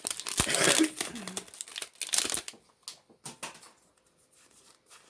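Foil wrapper of a Pokémon booster pack crinkling and tearing as it is opened, dense for the first two and a half seconds, then giving way to a few faint rustles and clicks as the cards are handled.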